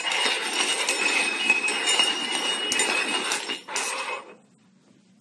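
Small metal cups being slid and shuffled across a wooden floor, scraping and clinking against each other, stopping about four seconds in.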